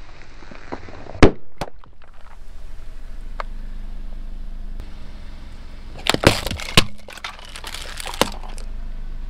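Things cracking and bursting as a car's tyre rolls over them. One very loud sharp crack comes about a second in, then a quick cluster of cracks and crunches about six seconds in and a single crack near the end, over a low steady hum.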